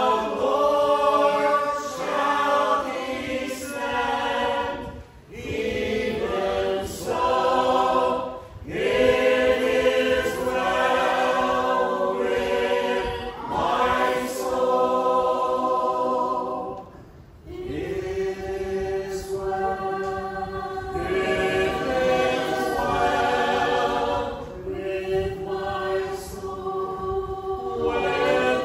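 A small mixed group of men's and women's voices singing a gospel hymn together without instruments, in long sung phrases with brief breaths between them.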